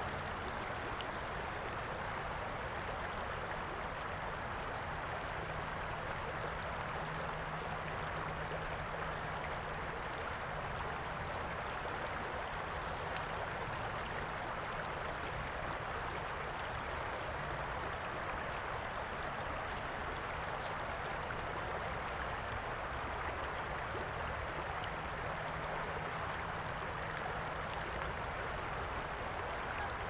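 Shallow river water flowing steadily over stones, a constant rush and ripple.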